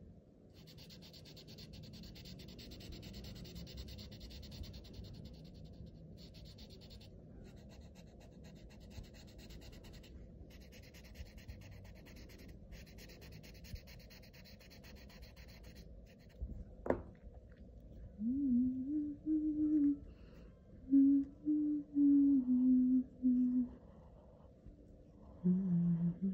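Felt-tip marker rubbing and scratching on paper in strokes while a pattern is filled in. About two-thirds of the way through there is a click, then a person hums a short, slow tune of held notes, which is the loudest sound.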